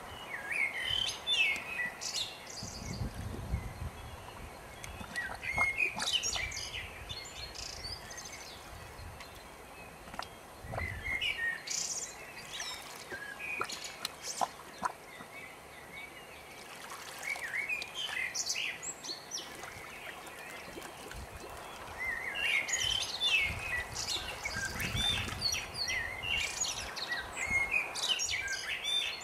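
Birds singing, with clusters of short chirping phrases coming and going throughout. A low rumble rises briefly a few times, about two to four seconds in, around eleven seconds and around twenty-five seconds.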